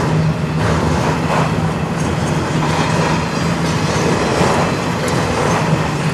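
Freight train cars of a mixed intermodal and autorack train rolling steadily past, wheels clacking over the rail, under steady wind noise, heard from inside a car.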